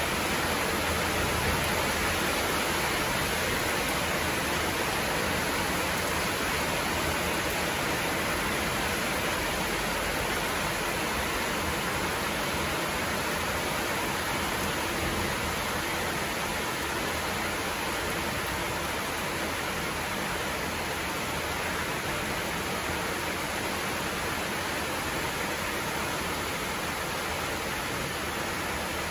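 Heavy rain falling steadily, an even hiss with no change in strength.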